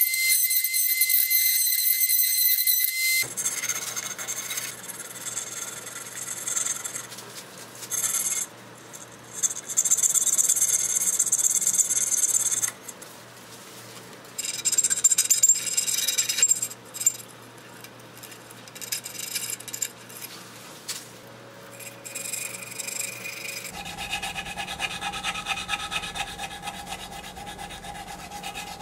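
Woodturning on a snakewood bowl spinning on a lathe. A high whine cuts off about three seconds in. Then a cutting tool scrapes and shaves the wood in uneven stretches over the lathe motor's low hum. From about 24 seconds on there is a steadier rubbing, like a tool or abrasive held against the turning bowl.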